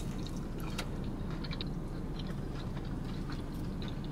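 A person chewing a bite of breaded Nashville hot mozzarella stick with the mouth close to the microphone: soft wet mouth sounds and small scattered crackles of the fried coating, over a steady low hum.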